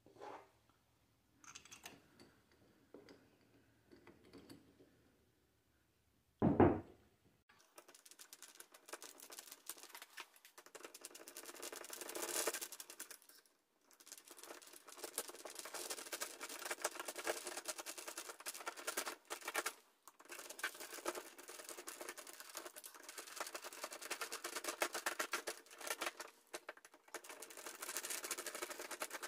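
Screwdriver driving the mounting screws of a doorknob lockset: a long run of rapid small clicks and scraping, pausing briefly a few times. One loud knock comes about six seconds in.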